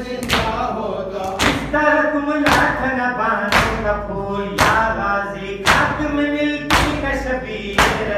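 A man chanting a noha (Shia lament) in a sung, wailing voice, with the mourners' matam (open-handed chest-beating) landing in unison about once a second as a steady beat of sharp slaps.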